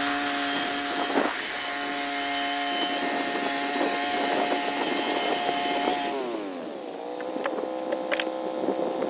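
Petrol-engined saw running at full throttle through wood. About six seconds in the revs drop and the engine keeps running at a lower speed, with a few sharp knocks near the end.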